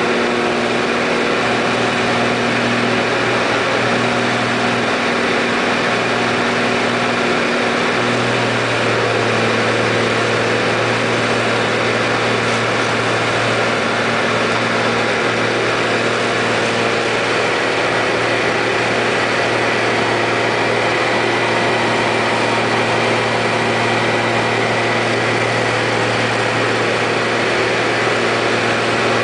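Single-engine Cessna floatplane's piston engine and propeller droning steadily as it climbs after takeoff, heard from inside the cabin, with a slight change in tone about eight seconds in.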